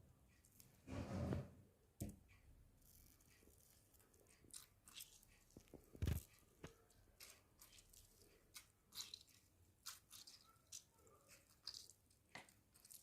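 Lemons squeezed by hand over stuffed pickled eggplant: faint wet squelches and small clicks of handling, with one sharp thump about six seconds in.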